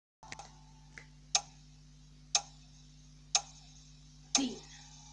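Countdown clock ticking: sharp ticks about a second apart, four in all, starting a little over a second in.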